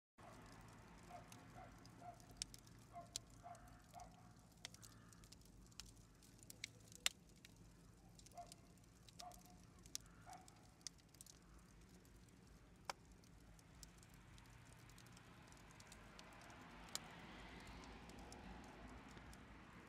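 Faint wood fire crackling in a wood-fired oven, with sharp pops scattered throughout and a soft rushing of the flames that grows toward the end.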